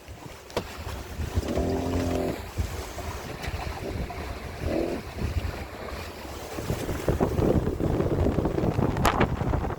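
Wind buffeting the microphone over water rushing past the hull of an Etap 38i sailing yacht sailing upwind. Two short pitched sounds come about two and five seconds in, and a sharp click comes near the end.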